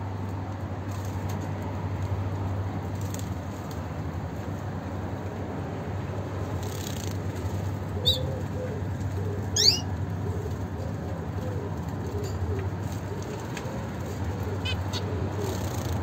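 Two short, sharp zebra finch calls a second and a half apart, about halfway through, the second a quick upward sweep. A steady low hum runs underneath, with a few faint high ticks near the end.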